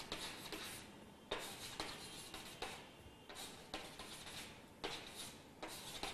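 Chalk striking a blackboard in short dashes, a quick tap, sometimes with a brief scrape, about every half second at uneven intervals.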